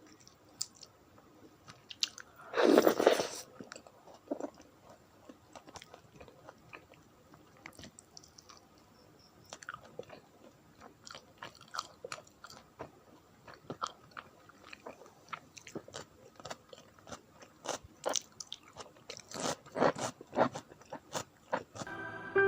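Close-up eating sounds: chewing with many small wet mouth clicks, and one louder crunchy burst about three seconds in. The clicking grows busier near the end.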